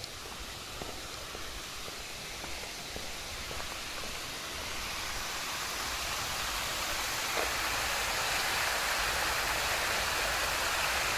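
Steady rushing noise that grows gradually louder from about five seconds in.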